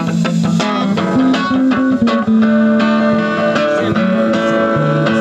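A live band playing an instrumental passage: guitar to the fore over low bass notes that change every second or so.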